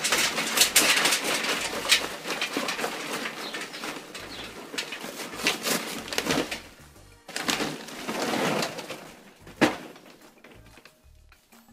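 Charcoal poured into a metal chimney starter: a dense clatter of pieces tumbling in, thinning out after about seven seconds, then a short second pour and a single knock.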